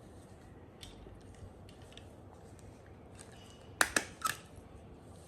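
Three quick, sharp clicks close together about four seconds in, over a faint steady hiss with a few small ticks.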